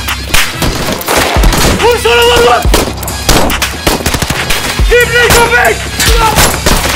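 Gunfire: many rapid shots and bursts of automatic fire, over background music.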